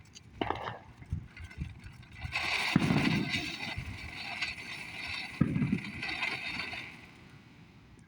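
Consumer firework fountain hissing as it sprays sparks, with two low thumps, dying away about seven seconds in.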